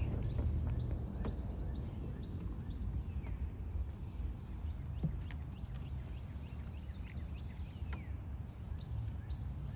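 Outdoor backyard ambience: a steady low rumble with faint, scattered bird chirps and an occasional small click.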